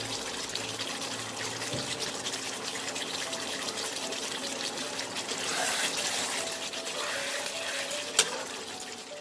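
Thick kadai paneer gravy simmering in a kadai, a steady dense crackle of bubbling and sizzling. A spatula clicks once against the pan about eight seconds in as it is stirred.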